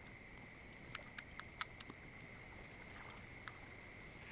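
Combination safe dial being turned: a quick run of five sharp clicks, about five a second, then a single click later on. Under the clicks is a faint, steady, high-pitched hum.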